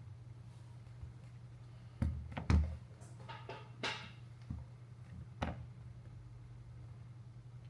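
A few sharp clicks and knocks over a steady low hum. Two come close together about two seconds in, the loudest of them, and a few lighter ones follow: handling sounds of a phone and tools during a screen repair.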